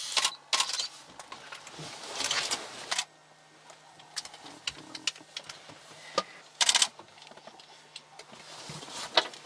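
Irregular clicks and short bursts of rustling noise, the loudest just at the start and about two-thirds of the way through, over a faint steady low hum: camera handling noise.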